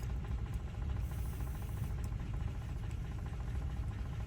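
Steady low engine-like rumble, with a few faint light clicks.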